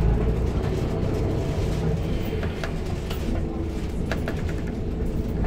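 Diesel bus engine running with a steady low rumble, heard from inside the passenger cabin, with several short rattles and clicks from the bus interior.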